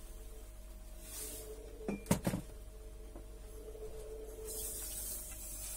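A few light knocks of kitchen containers set down on the table about two seconds in, with short soft hisses of granulated sugar being poured, over faint steady background music.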